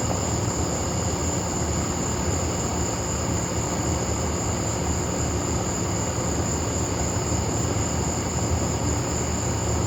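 Steady night chorus of insects, a continuous high-pitched buzz, over a steady low rumble.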